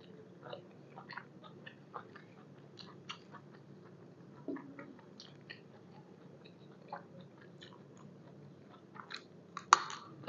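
A person chewing mouthfuls of spicy beef-tripe salad with fresh vegetables and herbs: a run of short wet mouth clicks and soft crunches, with one louder, sharper one near the end.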